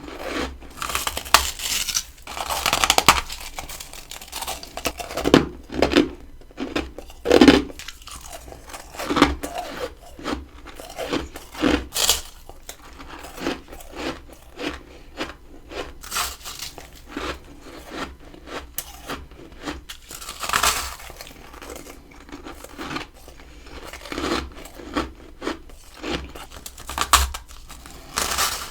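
Close-up biting and chewing of freezer frost: an irregular run of crisp crunches and crackles, with louder bites every second or two.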